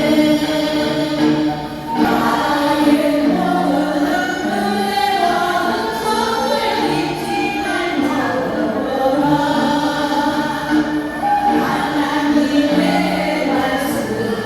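A church praise team singing a Christian praise song together as a choir, several voices holding notes that shift from phrase to phrase.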